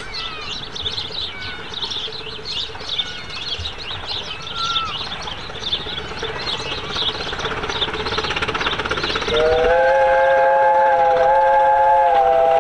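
Birds chirping as a train draws nearer, its sound slowly growing; about nine seconds in, a 15-inch-gauge steam locomotive's chime whistle sounds a long, loud chord of several notes.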